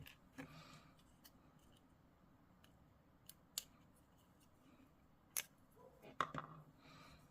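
Faint, scattered small clicks and taps of plastic miniature parts and hobby tools being handled while gluing, with a few sharper clicks about five and six seconds in.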